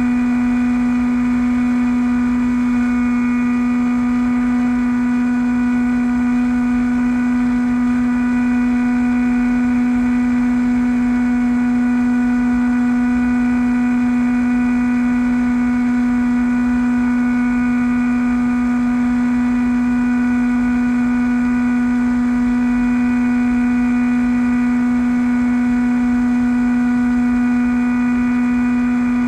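Bixler v1.1 RC plane's electric pusher motor and propeller running at a steady cruise throttle in flight: a constant hum with higher overtones, unchanging in pitch, over a low wind rumble.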